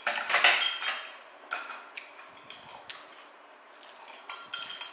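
Eating utensils clinking against ceramic bowls and plates at the table: a handful of short, sharp clinks, some ringing briefly, with a quieter pause near the middle.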